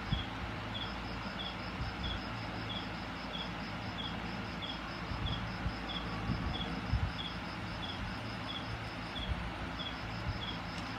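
Steady background hiss with rhythmic, insect-like high chirping: one series at about one and a half chirps a second and a faster, higher series alongside it, with a few soft low knocks.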